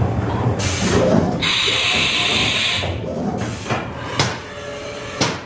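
A hiss of air lasting about a second and a half, followed by a few sharp knocks, over a steady low hum of machinery.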